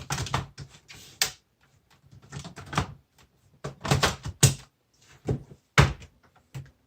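Plastic clicks and knocks from a Dell Precision M4800 laptop being handled as its battery is fitted back in, with several sharp clacks spaced through the few seconds and a cluster about two-thirds of the way in.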